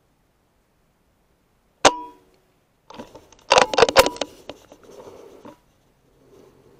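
Logun S16 .22 PCP air rifle firing one shot, a sharp crack with a short ring, about two seconds in. About a second later comes a rapid cluster of metallic clicks and clacks as the rifle's action is worked to load the next slug.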